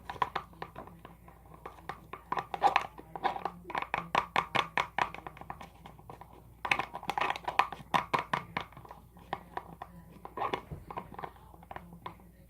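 A mixing tool whisking 3-in-1 shampoo, conditioner and body wash in a bowl, tapping and clicking quickly against the bowl, about five strokes a second, in runs with brief pauses, as the liquid is whipped into a bubbly foam.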